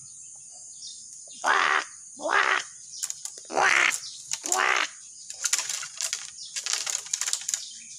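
A bird giving four loud, harsh calls about a second apart, then a run of fainter, raspy chattering calls, over a steady high insect buzz.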